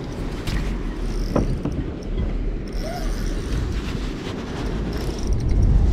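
Low rumbling buffeting on the camera microphone, typical of wind and handling noise, swelling just before the end. A few faint knocks come through it, the clearest about a second and a half in.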